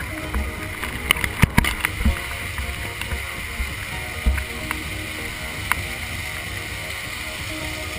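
Steady rush of a waterfall pouring into a rock pool, with sharp clicks and knocks from the camera being handled. The clicks are loudest in a cluster about a second and a half in, with dull thumps a little later.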